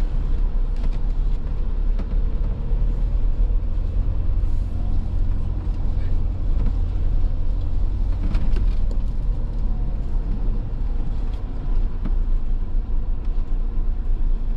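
Motorhome on the move: a steady low engine and road rumble, with a few light clicks and rattles now and then.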